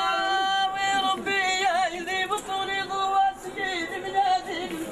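Amazigh singing: a single voice holding long notes and bending them into wavering, melismatic ornaments.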